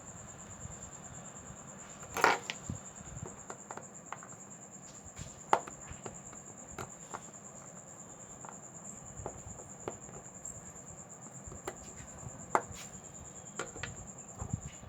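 Scattered light clicks and taps of small tools and phone parts being handled, the sharpest about two, five and twelve seconds in, over a steady high-pitched whine.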